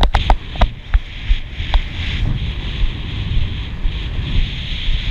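Wind buffeting the camera microphone, a constant rumble with a hiss over it. Sharp clicks come and go in the first two seconds.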